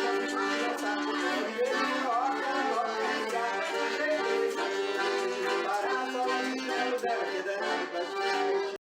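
Accordion playing a traditional tune, with held chords under a moving melody. It cuts off abruptly near the end.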